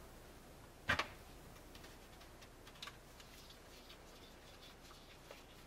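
A single light knock about a second in, then faint, scattered small ticks of a precision Phillips screwdriver turning the tiny screw back into a plastic car key fob case.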